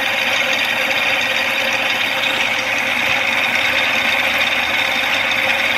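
Replica Searl effect generator running: its magnetic rollers circle the stacked ring with a loud, steady mechanical noise.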